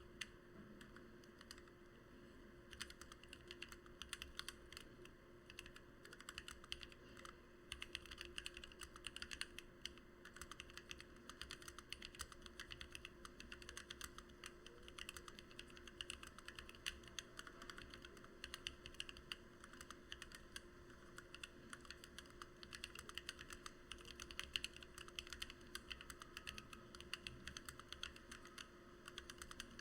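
Typing on a Lily58 split mechanical keyboard with lubed and filmed Gateron Black Ink V2 linear switches and PBT OEM-profile blank keycaps: fast, irregular keystrokes. The typing starts in earnest about three seconds in and runs with only short pauses.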